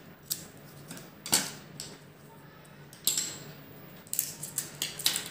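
Small scissors snipping through paper: a few separate sharp snips, the loudest about a second in, then a quick cluster of clicks and taps near the end as the scissors are put down on the tabletop.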